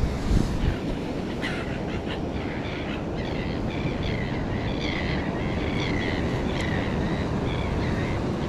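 Steady rush of surf and wind on the microphone. From about three seconds in, a bird calls in a run of short repeated cries.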